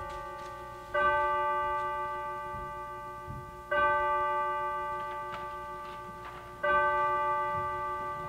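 A single bell tolling slowly, struck three times about three seconds apart, each stroke ringing on and fading before the next.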